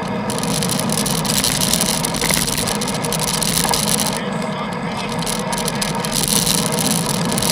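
Steady traffic noise heard from a bicycle: a motor vehicle's engine running close by, over a constant hiss of wind and wet road.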